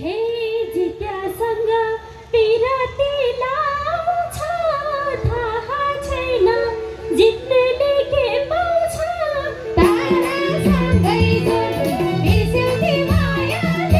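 A woman singing a Nepali dohori folk song, a long ornamented vocal line over a steady held drone from the accompaniment. About ten seconds in, the band's drum beat comes in under her voice.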